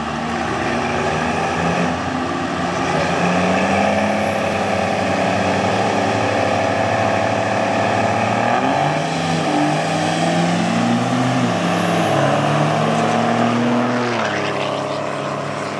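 Turbo-diesel pickup truck engines at full throttle, accelerating hard down a dirt drag strip. The engine pitch climbs and drops back several times as the gears change, with a thin high whine over the top. The sound eases near the end.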